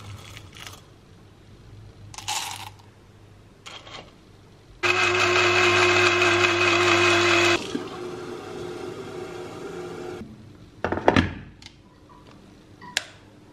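Black+Decker electric blade coffee grinder grinding whole coffee beans: a loud, steady whirr for about three seconds, then a quieter stretch of running that stops about ten seconds in. Short rustles come before it, and a sharp clack and a click come near the end.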